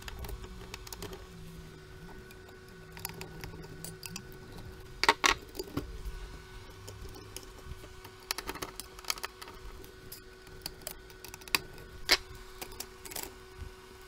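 Small metallic clicks, taps and rattles from a screwdriver loosening screws and the filter-capacitor board being shifted inside the open chassis of a stereo receiver. The loudest knocks come about five seconds in and near twelve seconds. A faint steady hum runs underneath.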